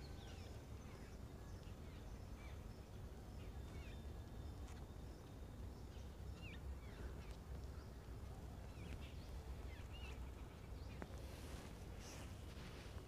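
Faint outdoor ambience: scattered short bird chirps over a low steady rumble.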